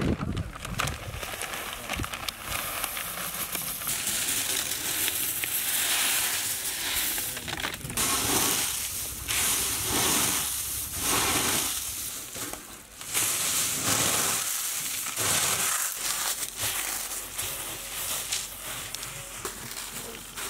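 Dry corn flakes being crushed and rubbed by gloved hands on newspaper: a crackling crunch that comes in repeated surges, about one a second.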